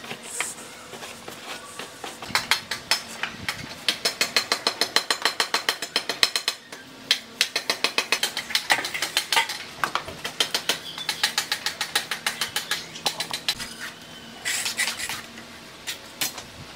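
A brush scrubbed quickly back and forth over a fresh cement-mortar cornice, making runs of rapid scratchy strokes, several a second, with short pauses between runs.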